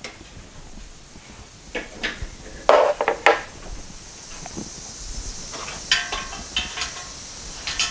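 Scattered knocks and metallic clinks as welding equipment and its cable are handled and set up, with the loudest pair of knocks about three seconds in and a run of ringing clinks near the end.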